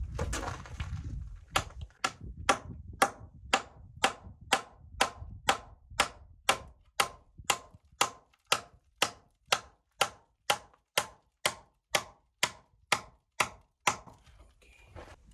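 A hammer drives a nail with steady, evenly paced blows, about two a second, each a sharp knock with a short metallic ring. The nail fixes an upright wooden board to a stone wall. Scuffing handling noise comes before the hammering starts.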